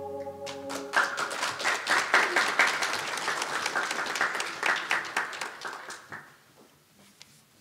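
Congregation applauding in a church after a solo song, starting over the last held chord of the organ accompaniment, which stops about a second in. The clapping dies away after about six seconds.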